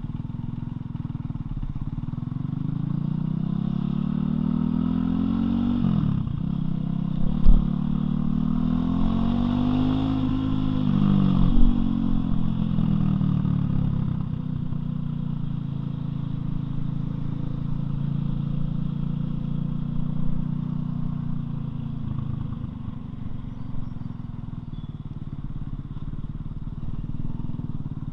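Loncin LX250-12C motorcycle's single-cylinder engine heard while riding: it revs up through the gears with a shift about six seconds in, climbs again, slows down between about eleven and fourteen seconds in, then runs steadily. Two short thumps stand out, the louder one about seven seconds in.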